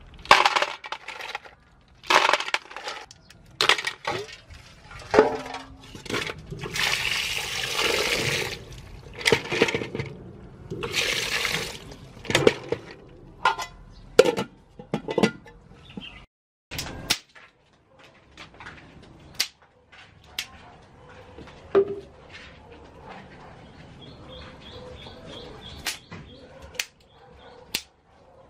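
Apple snail shells clattering against each other and on a metal basin as they are handled and dropped in, with water pouring and sloshing in the basin twice in the middle. Scattered sharp snaps follow in the second half.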